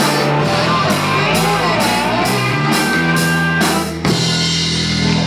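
Rock music with guitar and drums keeping a steady beat. About four seconds in, the drums stop and a chord is held.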